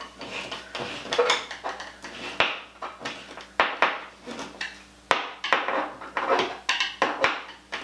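Hand screwdriver snugging down screws in a grab bar's metal mounting flanges: irregular clicks and scrapes of metal on metal as the screws are turned.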